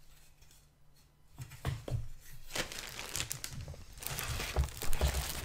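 Clear plastic bag crinkling and rustling as a bagged sprue of plastic model-kit parts is handled, starting about a second and a half in, with a few soft knocks mixed in.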